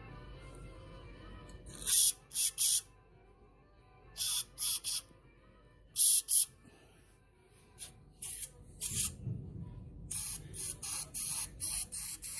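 Short hissing spray bursts in quick groups of two or three, then a run of shorter, weaker bursts near the end, typical of spraying out carburetor parts while cleaning them.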